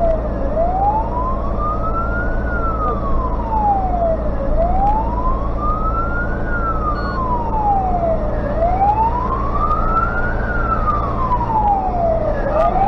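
Fire truck's wailing siren heard from inside the cab, sliding slowly up and down in pitch about once every four seconds. The Tatra truck's engine drones steadily underneath.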